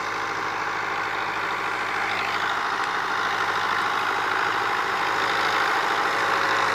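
1985 Fiat 640 tractor's four-cylinder diesel engine running steadily under load as it pulls a heavily loaded sugarcane trolley across a field, growing louder as it comes closer.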